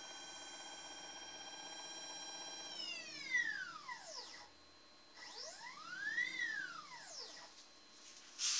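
Milling machine motor whining at a steady pitch, then winding down about three seconds in. It briefly speeds up and slows again, followed by a sharp knock near the end.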